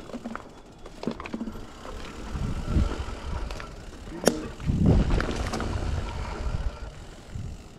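Mountain bike rolling along a leaf-covered dirt trail: tyre noise on dirt and leaves with clicks and rattles from the bike, and wind rumbling on the microphone, swelling twice. One sharp click comes a little over four seconds in.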